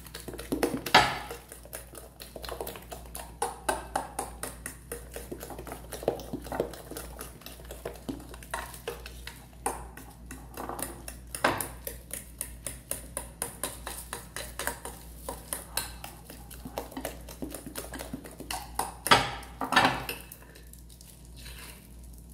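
A fork beating a wet cake batter of egg, sugar and margarine by hand in a glass dish: quick, repeated clinks of metal against glass, about four a second, with a few louder knocks. The strokes die away shortly before the end.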